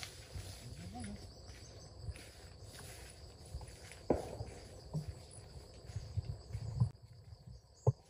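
Steady, high-pitched insect chorus in grassy woodland, with low rustling in the grass and two sharp knocks, one about four seconds in and one near the end.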